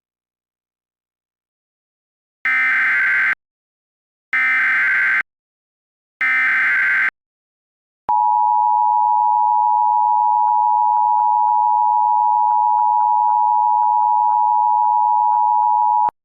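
Emergency Alert System header and attention tone: three short bursts of SAME digital header data, about a second each, starting about two and a half seconds in, then a steady electronic attention tone held for about eight seconds. This sequence opens a tornado warning.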